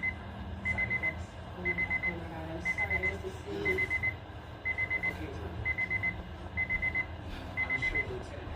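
Weather alert radio receiver's alarm beeping: quick groups of four short high beeps, about one group a second, the alarm that a receiver sounds when it picks up a broadcast alert. A faint low hum runs underneath.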